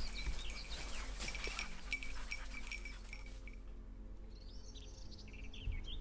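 A small bell on an English setter's collar jingling irregularly as the dog moves through the cover. From about halfway through, a songbird gives a series of short chirping notes.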